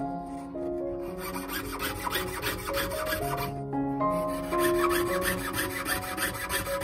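Jeweler's piercing saw cutting through thin brass plate in quick rasping strokes, about four or five a second, with a brief pause just past the middle. Soft piano music plays underneath.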